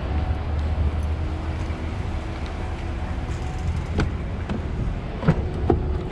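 Vehicle engine idling, a steady low rumble, with a few sharp clicks in the second half.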